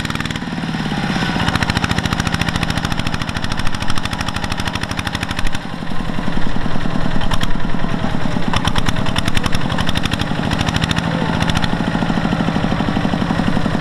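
Single-cylinder diesel engine of a Kubota two-wheel tractor chugging steadily under heavy load while it drags a mud-bogged trailer of rice sacks, working harder from about six seconds in.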